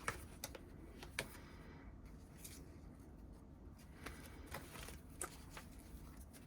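Faint rustling of paper mini posters and cards being handled and flipped through, with several short light taps and clicks scattered through it.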